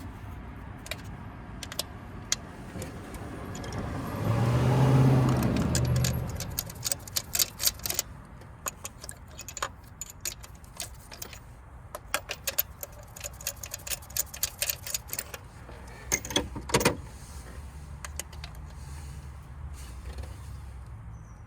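Metallic clicks and jingling rattles, like hand tools or metal parts being handled, over a steady low hum. A low rumble swells up and fades away about four to six seconds in.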